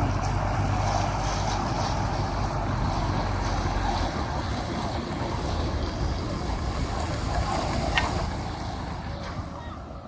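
Steady rush of a stream's water running over rapids, with a low wind rumble on the microphone in the first few seconds and a single click near the end.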